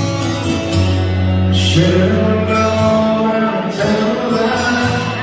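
Live acoustic music: two acoustic guitars playing, with a man singing over them.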